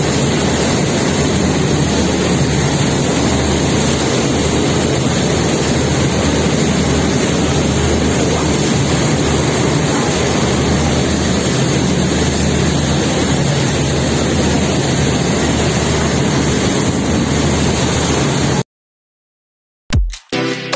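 A RoRo ferry's twin diesel engines drone steadily under the rush of its churning wake. The sound cuts off suddenly near the end, and electronic music begins.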